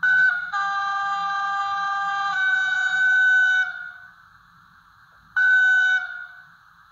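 Sound decoder of a model SBB Re 460 electric locomotive playing the locomotive's horn: a long blast that widens from one note into a chord and falls back to one note, then, after a pause, a short second toot. A faint steady hiss runs underneath.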